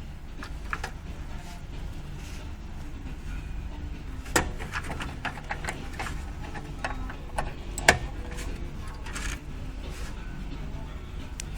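Scattered sharp clicks and knocks, with two louder ones about four and eight seconds in, over a steady low hum.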